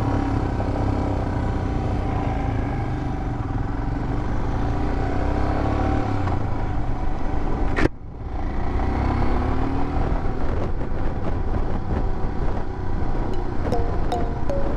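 Royal Enfield Himalayan's single-cylinder engine running as the bike is ridden at road speed, with wind rush on the microphone. The sound breaks off sharply about eight seconds in, then the engine note rises. Electronic music comes in near the end.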